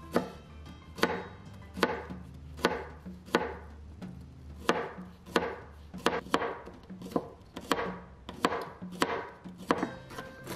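Kitchen knife chopping garlic on a cutting board: sharp knocks of the blade on the board, about one and a half a second in an uneven rhythm.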